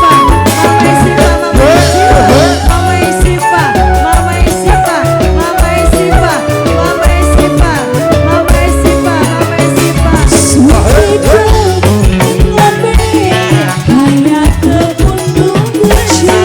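Loud live dangdut band music with a steady drum beat and a wavering, gliding melody line.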